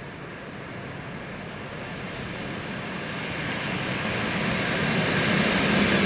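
ED4M DC electric multiple-unit train approaching at speed, its running noise growing steadily louder as it draws near.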